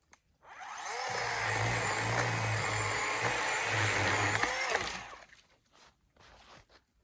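Achiforce 20 V cordless chainsaw's electric motor spinning up about half a second in, running steadily for about four seconds while cutting small limbs, then winding down and stopping.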